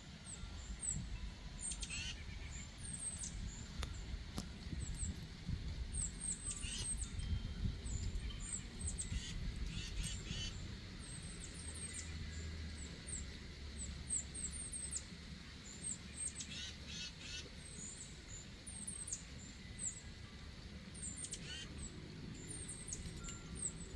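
Small birds chirping outdoors: many short, high-pitched chirps repeat throughout, over a steady low rumble.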